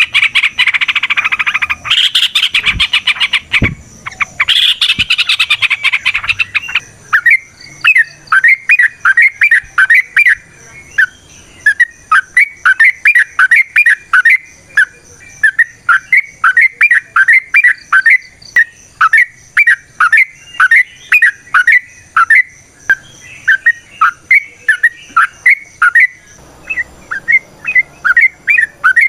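Yellow-vented bulbul (trucukan) singing its long 'ropel' song. It opens with a few seconds of dense, loud chattering, then runs into a long string of quick, evenly repeated bubbling notes, about three a second. A brief change in the phrase comes near the end.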